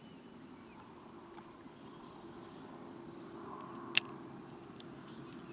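One sharp click about four seconds in, the loudest sound, over a faint steady hum and a few small ticks.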